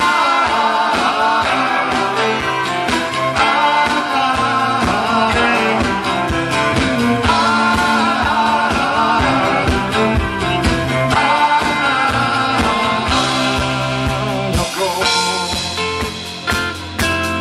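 Folk-rock band playing live, an instrumental passage with drums, bass and guitar under a wavering melody line. The recording, made through a compact camera's microphone, sounds poor.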